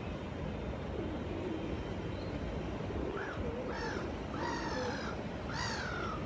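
A bird gives four short harsh calls in the second half, the last one falling in pitch, over the steady rush of a flowing river.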